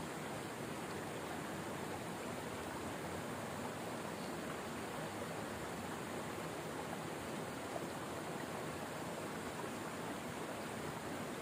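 Steady rushing noise, even throughout, with no distinct sounds standing out.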